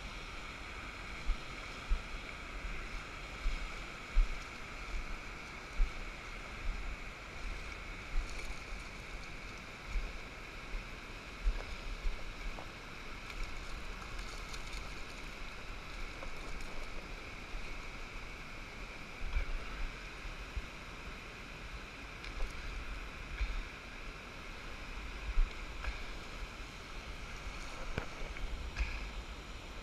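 Small surf washing in shallow sea water, with wind rumbling on the microphone in irregular gusts and occasional splashes from a small sea bass being brought in by hand.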